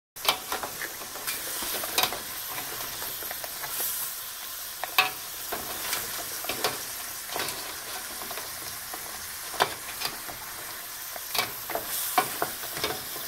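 Shell-on lobster pieces sizzling as they sauté in hot olive oil in a stainless steel pot while a wooden spoon stirs them. Steady frying hiss, with scattered sharp clicks and knocks throughout.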